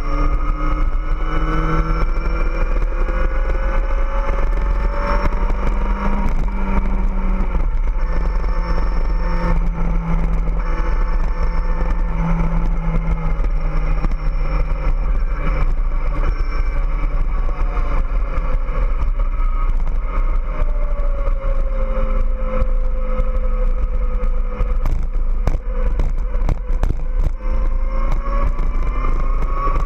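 Kawasaki ZX-14R's 1441 cc inline-four engine pulling along the road: its pitch rises over the first few seconds, settles and sinks through the middle, then climbs again near the end, over a steady low wind rumble on the microphone. A patch of short rattling clicks comes near the end.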